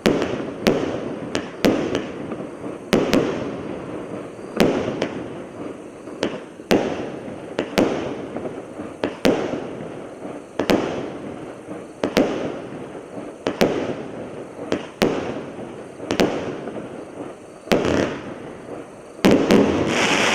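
Hallmark Fireworks 'Inferno' 48-shot barrage cake firing, about one shot a second, each a sharp report that trails off over about a second.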